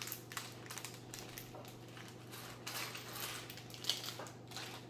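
Small plastic LEGO pieces clicking and rattling as they are handled and sorted: an irregular scatter of short, sharp clicks.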